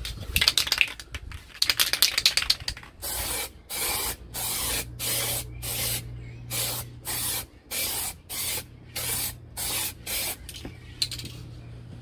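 Aerosol can of hydrographics activator sprayed over PVA print film floating on water, in more than a dozen short bursts at about two a second after a few seconds of uneven hissing. The activator dissolves the film so the ink spreads across the water's surface for dipping.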